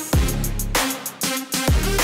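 Electronic background music with a steady beat: deep bass drum hits that drop in pitch, with sharp hi-hat strokes above.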